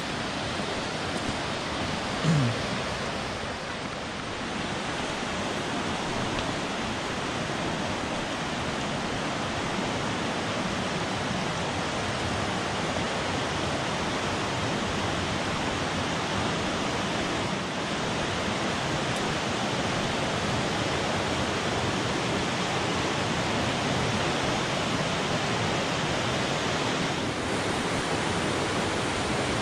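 Steady rushing of a fast mountain river pouring over rocky rapids, the water high and muddy after a night of heavy rain. A brief voice sound about two seconds in.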